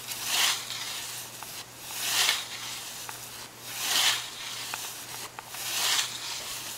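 A scythe blade slicing through lawn grass in even swinging strokes, the blade riding on the ground and slipping underneath the grass. Four swishes, about one every two seconds.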